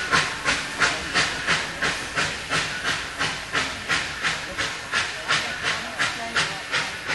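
2-8-0 steam locomotive working hard out of sight, its exhaust chuffing in a steady beat of about three a second and slowly growing fainter.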